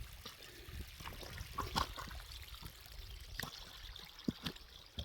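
A small rain-fed mountain stream trickling, with wind rumbling on the microphone and scattered short knocks at irregular times.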